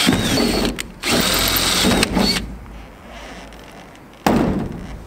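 Handheld drill boring through the bus's sheet-metal roof in two bursts, the motor whining and changing pitch, the second burst stopping about two and a half seconds in. A single sharp knock follows about four seconds in.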